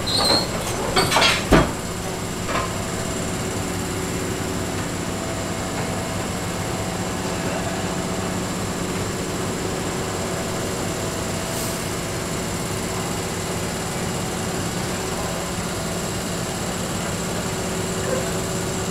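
Skip loader lorry's diesel engine running steadily during a skip exchange, with a few loud clanks in the first couple of seconds.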